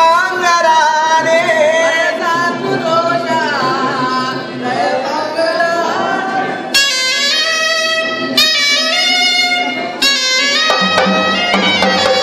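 Traditional music led by a reedy wind instrument. A wavering, gliding melody gives way about seven seconds in to long held notes that each start sharply, and a low pulsing beat joins near the end.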